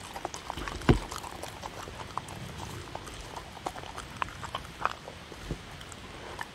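Dogs eating from wooden bowls close to the microphone: irregular small clicks of chewing and licking, with a dull knock against a bowl about a second in and another softer one later.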